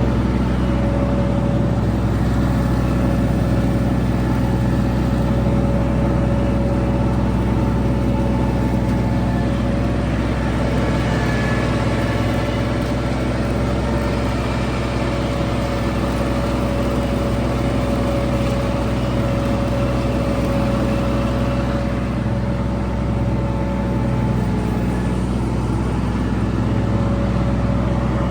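Kubota G231 ride-on mower's three-cylinder diesel engine running steadily at constant working revs, with the cutting deck and grass collection running, while mowing wet long grass.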